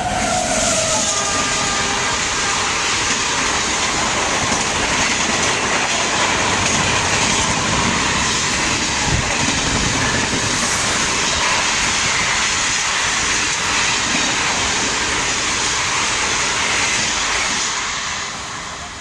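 Indian Railways express train running through at high speed: a steady rush of wheel-on-rail noise with clickety-clack from the coaches. The tail of its horn dies away in the first second or so, and the noise fades near the end as the last coach goes by.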